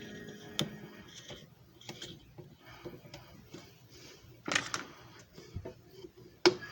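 Irregular sharp plastic clicks and light knocks from handling a JFJ Easy Pro disc repair machine, with the loudest clicks just past the middle and near the end.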